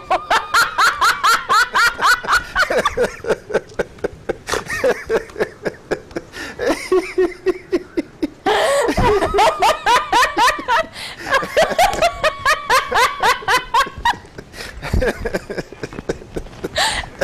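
A woman laughing helplessly in long fits of quick, rhythmic peals, with a short lull near the end before the laughter starts again.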